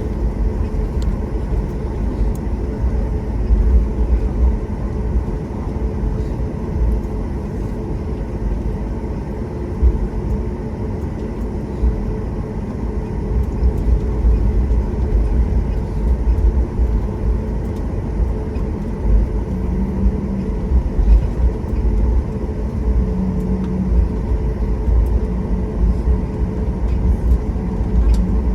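Steady low rumble inside an airliner cabin as it taxis after landing: jet engines at idle and the rolling of the gear, with a constant hum over it.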